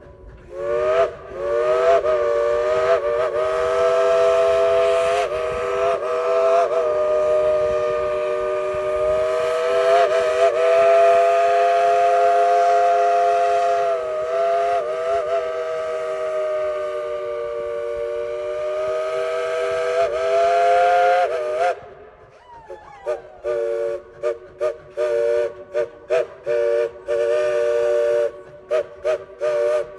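Chime whistle of a Dollywood Express 2-8-2 narrow-gauge steam locomotive, sounding a chord of several notes: a few short toots, then one long blast of about twenty seconds that swells and dips before cutting off. After a brief falling note, it gives a rapid string of short toots, about two a second.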